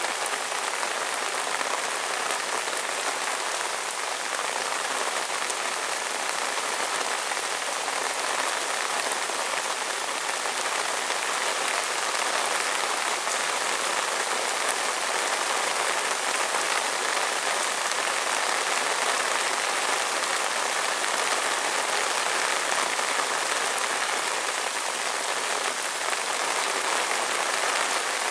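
Steady rain falling, an even, continuous hiss with no break or change.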